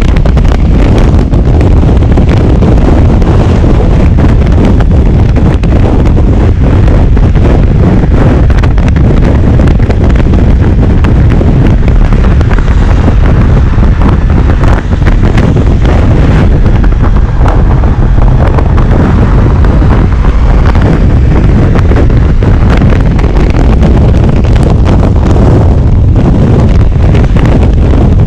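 Loud, steady wind rumble buffeting the microphone as a Honda ST1100 Pan European motorcycle rides along at road speed.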